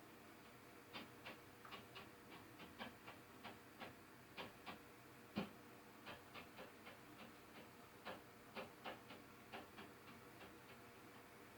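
Light, irregular tapping from the unit upstairs, heard through the ceiling: about two or three quick taps a second, with one louder knock about five seconds in.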